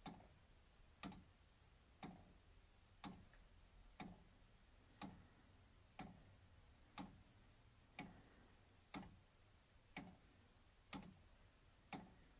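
Wooden clock's recoil escapement with notched roller pallets ticking faintly and evenly, about once a second, as the pin wheel's pins meet the rollers.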